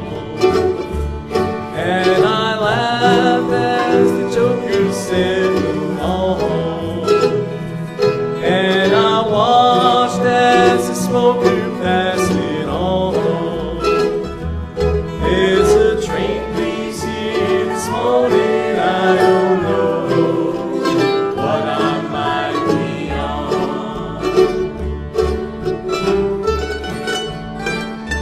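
Acoustic bluegrass band playing an instrumental break, with fiddle, mandolin, acoustic guitars and upright bass. Sliding melody lines run over a steady rhythm.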